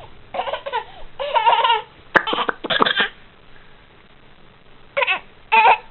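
A baby laughing and squealing in three bursts of high, wavering voice, with a sharp click about two seconds in.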